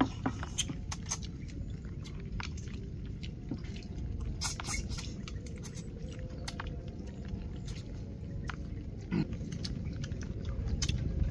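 People eating a meal with chopsticks: chewing, with scattered light clicks of chopsticks against bowls, over a steady low rumble.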